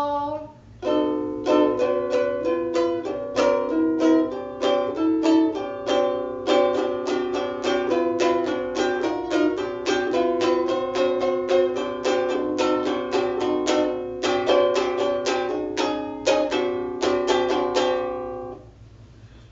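Bruko ukulele played solo, plucked in quick notes and chords as an instrumental passage; the playing stops near the end.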